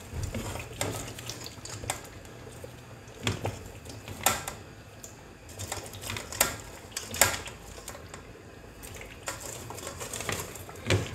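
Irregular clicks and taps of a spoon and pieces of fried meat knocking against a metal cooking pot as the meat is added to tomato stew, with a few sharper knocks about four, six, seven and eleven seconds in.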